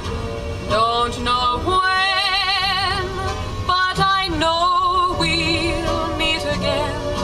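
Background music: a woman singing long held notes with a wide vibrato over instrumental backing, in the style of a wartime ballad.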